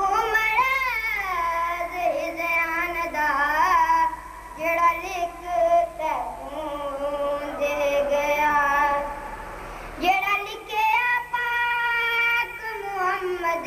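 A boy singing a Punjabi elegy for Husain solo into a microphone, with long held, wavering notes and a short pause about ten seconds in.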